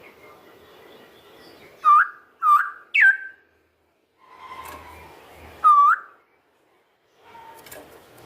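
Straw-headed bulbul (cucak rowo) calling loud, liquid whistled notes. Three come in quick succession about two seconds in, and another comes near six seconds.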